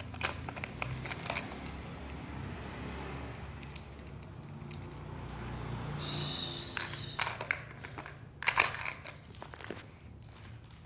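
Fishing tackle being handled: plastic packaging crinkles and rustles, with scattered sharp clicks and taps that come thickest between about six and nine seconds in, over a steady low hum.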